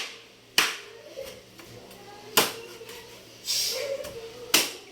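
Three sharp chopping strikes of a knife on a chopping board, cutting up chicken, roughly two seconds apart, with a brief scraping hiss between the second and third.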